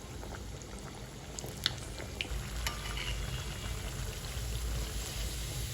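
Hash brown patties frying in hot oil: a steady sizzle with scattered pops and crackles that grows a little louder as it goes.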